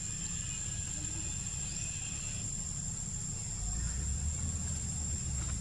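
Outdoor background noise: a steady low rumble that grows louder a little past halfway, under a constant high-pitched whine, with one short rising chirp about two seconds in.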